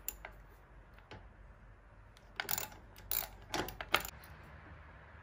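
Metal hardware clinking and rattling as a mounting bolt and the mini floorboard are handled at a motorcycle's footpeg mount. There is a sharp click at the start, then short clusters of clinks between about two and four seconds in.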